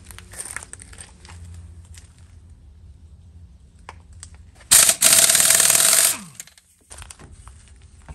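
Cordless impact wrench hammering on a wheel lug nut for about a second and a half, loosening it so the wheel can come off. Its motor winds down in a falling whine after the trigger is released. Quieter clicks and knocks of handling the wheel come before it.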